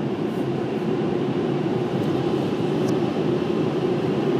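Automatic car wash machinery heard from inside the car, a steady rushing noise with a constant hum underneath.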